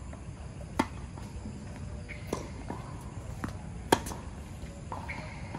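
Tennis ball struck by rackets in a rally on a hard court. A sharp serve hits about a second in, a return from the far end comes in the middle, and a loud near-side groundstroke lands near the end, with fainter ball bounces in between.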